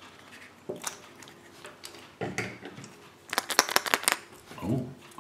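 Handling an opened Kinder Surprise egg: the chocolate shell halves and the yellow plastic toy capsule clicking and tapping in the hands, with a quick run of clicks about three seconds in.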